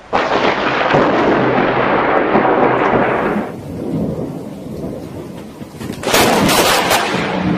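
Thunder from a lightning strike: a sudden crash that rumbles loudly for about three seconds and fades. About six seconds in comes a second sharp, crackling thunderclap.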